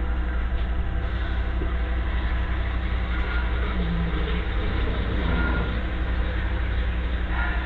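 Vehicle engine idling steadily, a constant low hum with no change in speed.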